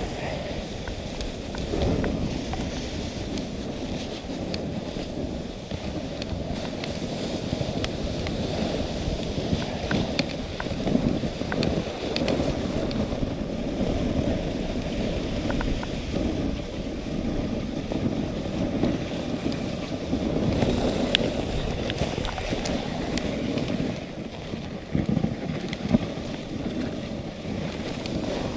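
Dog sled running along a snow trail: a steady rushing of the runners over the snow, with wind on the microphone and scattered small clicks and knocks from the sled.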